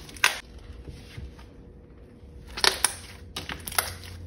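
Clear putty slime packed with chunky glitter being pressed and kneaded by hand, giving sharp pops and crunchy crackles: one pop at the start, then a run of about five pops and crunches in the second half.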